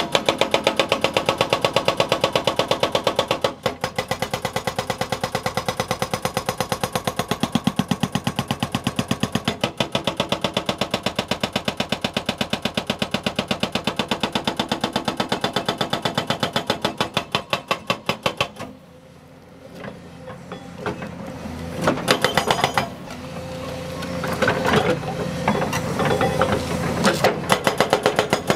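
SkanCraft SCB24 hydraulic breaker on an excavator hammering concrete: loud, rapid, evenly spaced blows. About two-thirds of the way through the hammering stops for a few seconds, leaving the excavator's engine running. It then starts again in short bursts and runs steadily again near the end.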